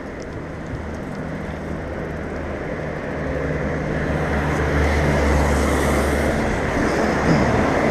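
A motor vehicle's engine hum growing steadily louder over a steady hiss of wet-road and wind noise, with its pitch dropping near the end.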